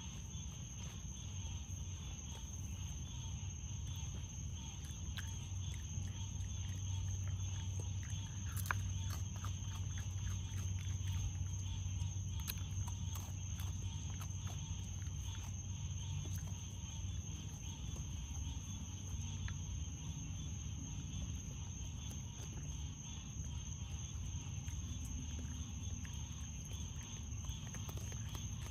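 Raccoon eating dry kibble from a bowl: scattered crunches and clicks, thickest about a third of the way in. Night insects keep up a steady high chirring, with a steady low hum underneath.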